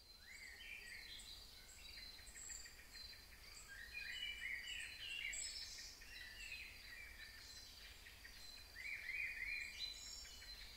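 Faint birdsong: several birds chirping and giving short rising whistles, busiest about four seconds in and again near the end, over a steady high note.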